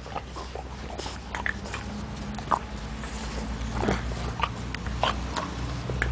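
Shar Pei puppy close to the microphone, mouthing at a hand: a scatter of short, soft clicks and small noises over a low steady rumble.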